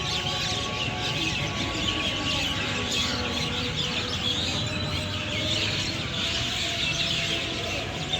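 A large flock of birds in a tree chirping and calling together: a dense, continuous chatter of many overlapping short calls, over a low background rumble.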